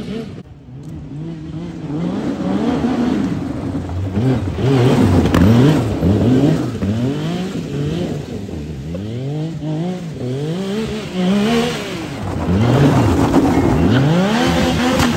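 Side-by-side's engine revving up and down over and over, about once a second, as the machine spins donuts with its wide slick tyres spinning on leaves and dirt.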